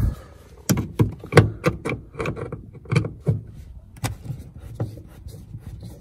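Irregular clicks and knocks of a Phillips screwdriver being set into and worked on screws in a car's plastic interior door-handle trim, with hand and handling bumps against the plastic.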